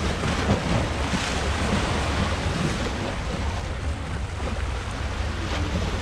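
Sea waves washing in, swelling about a second in, over a steady rumble of wind on the microphone.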